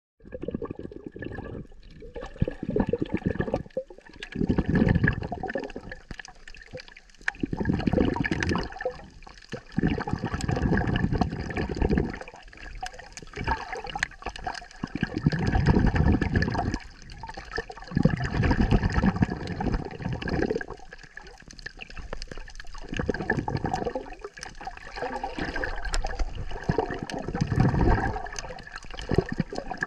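Muffled rushing and sloshing of water heard by an action camera held underwater, swelling and fading in surges every two to three seconds.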